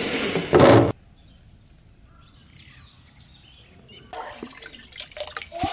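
A loud scrape of a sheet-metal lid on a ceramic jar in the first second, then a quiet spell with faint bird calls. From about four seconds in, water sloshes and drips in the jar of soaking, fermenting rice.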